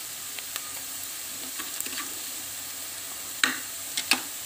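Grated onion and spices frying in hot oil in a non-stick kadhai: a steady sizzle, with two or three sharp taps of the wooden spatula against the pan near the end.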